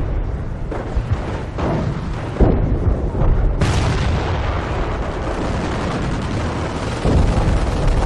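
Battle sound effects: artillery shells exploding in several booms over a continuous deep rumble. The biggest blast comes about three and a half seconds in.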